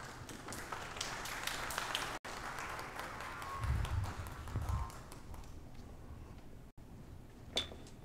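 Scattered light taps and rustling, with a couple of low thuds a little past halfway: people handling books and shifting about in the choir area.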